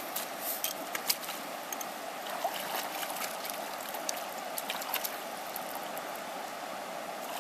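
Stream water flowing steadily, with small splashes and drips as hands rinse a dressed woodcock breast in it, most noticeable about a second in.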